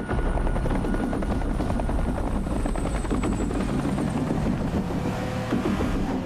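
Police helicopter rotor chopping steadily overhead.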